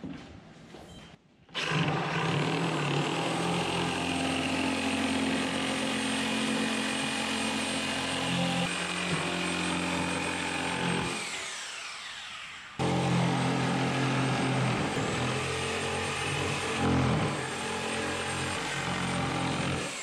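Yellow cordless reciprocating saw cutting through a sheet of plywood. It starts about a second and a half in, winds down near the middle, starts again a second or so later and runs until it winds down at the end.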